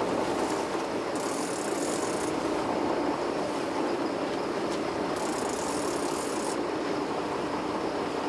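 Steady drone of a fishing boat's engine running, with water noise. Two spells of high hiss, each about a second long, come in about a second in and again about five seconds in.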